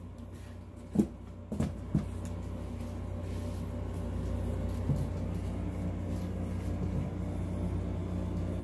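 A few light knocks as a rifle with its magazine fitted is laid down into its cardboard shipping box, over a steady low hum.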